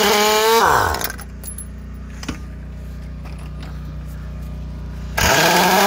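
Harbor Freight Earthquake 1-inch air impact wrench running on rusty truck lug nuts: it winds down within the first second, and after a pause with a steady low hum and a few small metallic clicks it starts up again near the end, its whine rising.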